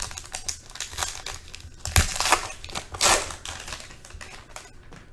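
Foil wrapper of a Panini Prizm football card pack being torn open and crinkled. The loudest rips come about two and three seconds in.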